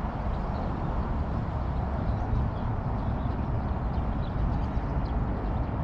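Steady low rushing outdoor noise with a few faint, short high chirps.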